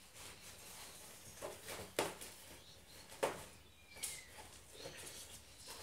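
Miniature Schnauzer puppy scuffling and pawing at a fabric play tunnel on a wooden floor: light scratches and knocks, with two sharper knocks about two and three seconds in and a faint short squeak about four seconds in.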